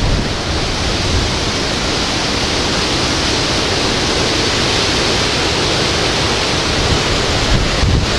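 Hurricane wind and heavy rain, a loud, steady rushing noise, with wind buffeting the microphone in a low, uneven rumble.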